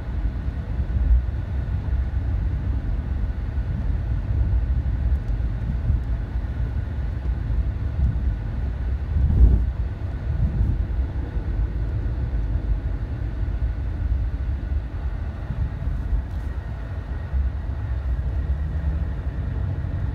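Steady low rumble of a moving car's road and engine noise heard from inside the cabin, swelling louder briefly about a second in and again around the middle.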